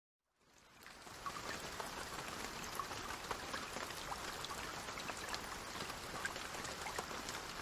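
Steady hiss of falling or running water with faint scattered drip-like ticks, fading in over about the first second.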